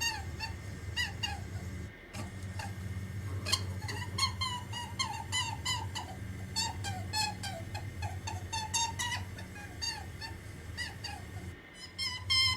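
Holland lop rabbit making a rapid series of short, high squeaky whimpers, each falling in pitch, several a second, over a steady low hum.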